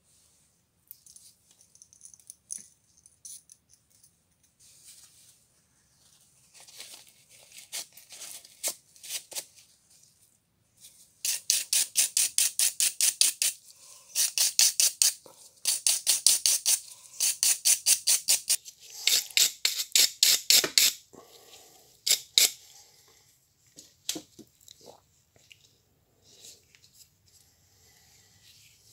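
A brush scrubbing the rusty metal shaft of a small screwdriver. It goes in several runs of fast back-and-forth strokes, about four to five a second, with scattered light scrapes and taps before and after.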